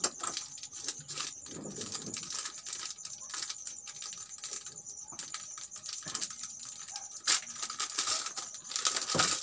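Paper crinkling and rustling as a small folded, stapled note is handled and unfolded, made up of many small irregular clicks, with a sharper snap about seven seconds in and thicker crackling near the end.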